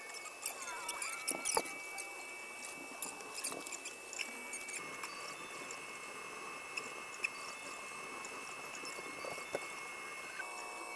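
Creality Ender 3 Pro 3D printer running a print: its stepper motors give off thin, steady whining tones that shift in pitch as the print head and bed move. Clusters of small ticks and squeaks come in the first few seconds.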